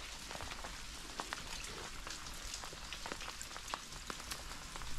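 Rain falling steadily, an even hiss with many scattered drops ticking sharply.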